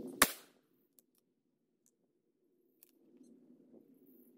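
A single .223 Remington rifle shot about a quarter second in, sharp and dying away quickly, followed by a couple of faint clicks.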